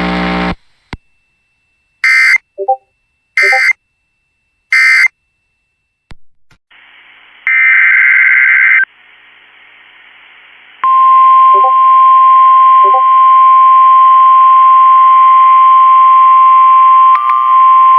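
Emergency Alert System header heard over a NOAA Weather Radio receiver: three short bursts of screeching digital SAME data a little over a second apart, then a louder burst about a second long. From about three-quarters of the way through, the steady 1050 Hz weather radio warning alarm tone sounds loudly over radio static, marking an incoming warning.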